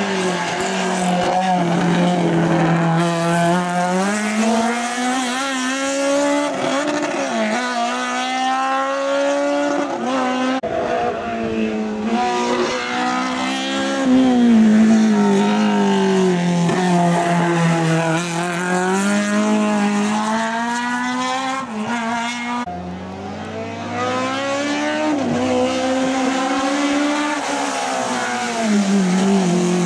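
Opel Kadett GTE hillclimb car's four-cylinder engine at full racing load, its pitch climbing and dropping again and again as it revs through the gears and backs off for corners. The sound breaks off abruptly twice, about ten seconds in and again about two-thirds of the way through.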